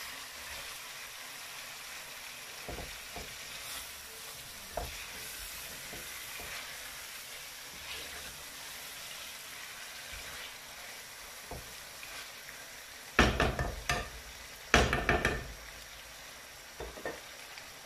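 Chicken frying and sizzling in a terracotta clay pot while a wooden spatula stirs it, with occasional soft taps against the pot. About three-quarters of the way through come two short, louder bursts of knocking and scraping.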